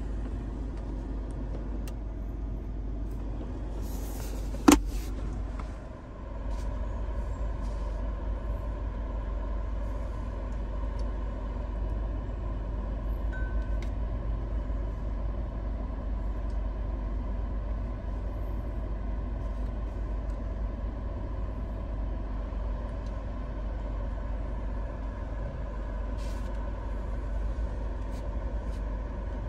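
Steady low hum in the cabin of a Proton X70 with its 1.8-litre turbocharged four-cylinder idling. One sharp knock about five seconds in, as the centre armrest storage lid is shut.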